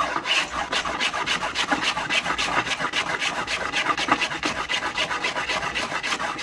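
Plough plane cutting a groove into the edge of a wooden board in short, quick strokes, about four to five a second, each a brief shaving cut. The strokes are small bites taken from the front of the groove and worked back toward the rear.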